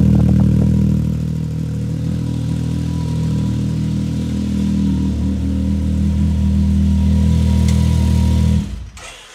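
Can-Am Maverick X3's turbocharged three-cylinder Rotax engine running steadily through a freshly fitted RJWC full cat-delete exhaust. The sound cuts off suddenly near the end.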